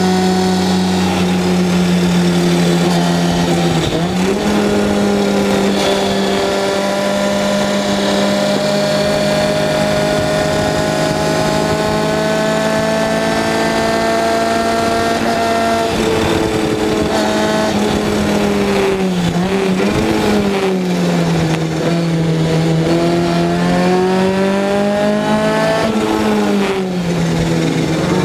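Seven-style club race car's engine at high revs, heard on board. The note dips briefly about four seconds in, then holds and creeps slowly upward for a long stretch. Past the middle it falls away and climbs again a few times, with a last dip near the end.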